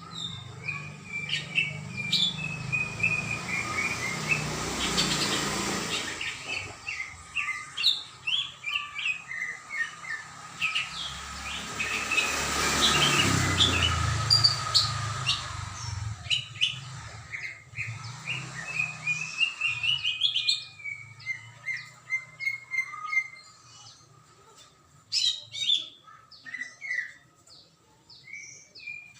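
Green leafbird (cucak ijo) singing vigorously, a dense run of sharp chirps and falling whistled phrases. A broad rushing noise swells and fades twice beneath the song, once around five seconds in and again around thirteen.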